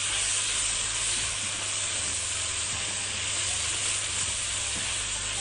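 Sliced mushrooms and carrots sizzling in butter in a frying pan as they are stirred with a silicone spatula. The sizzle is a steady hiss.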